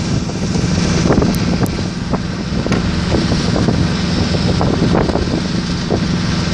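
Wind buffeting the microphone on a sailing yacht under way, with a steady low hum underneath and scattered brief knocks.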